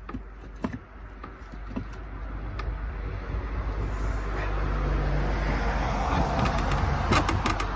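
A passing vehicle whose noise swells up over several seconds and holds near the end, with a few sharp knocks of wooden boards being handled near the end.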